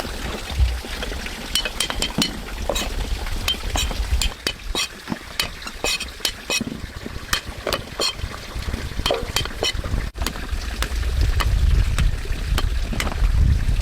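A run of light clinks and clicks, a dozen or more, scattered unevenly over a low rumble that grows louder near the end.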